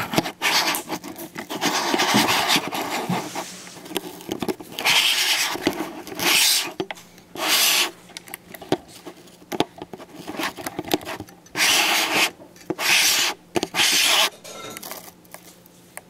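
Handling noise on the camera: repeated rubbing and scraping in bursts of a second or less, with quieter rustling in between.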